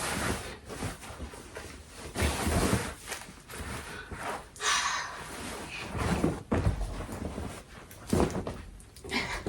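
Irregular rustling of clothing being handled and pulled on, with several dull thumps.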